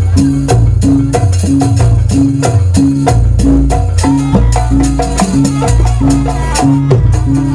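Jaranan gamelan music for a fast sampak piece: a loud, driving beat of drums and gongs with a short melodic figure repeating about twice a second.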